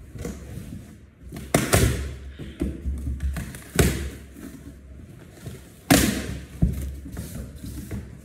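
Thumps and knocks as packed chair parts and cardboard are handled and shifted inside a large shipping box: about five sharp knocks, the loudest about two, four and six seconds in.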